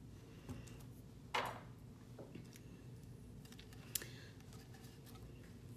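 A few faint, scattered clicks and one short rustle about a second and a half in, over a low steady hum.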